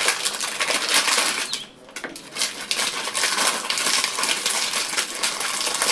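Small hard objects clicking and clattering as they are handled and rummaged through, with a brief pause just before two seconds in.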